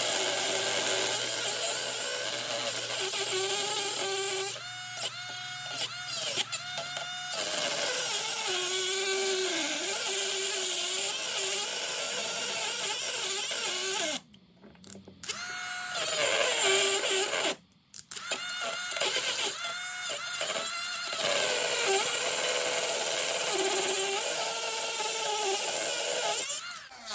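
Handheld power tool grinding into a Brinks laminated steel padlock. Its motor pitch sags and recovers under load, and it cuts out briefly twice; this tool stalls out quite a bit.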